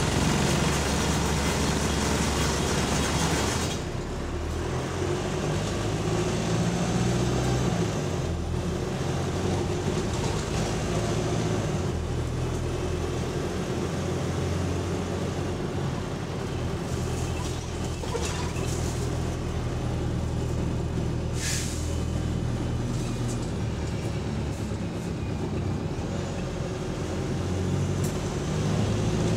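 Double-decker bus heard from the upper deck while it drives, the engine running steadily with interior panels and fittings rattling along. A short hiss of air sounds about two-thirds of the way through.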